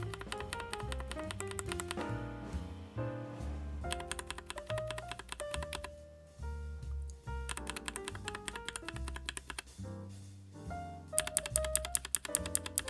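Typing on a NuPhy Air96 low-profile mechanical keyboard: quick runs of key clicks in about four bursts with short pauses between them, over background music.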